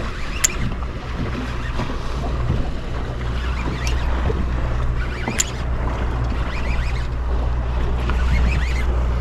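Boat on open water: a steady low hum with wind and water noise, and three sharp clicks about half a second, four and five and a half seconds in.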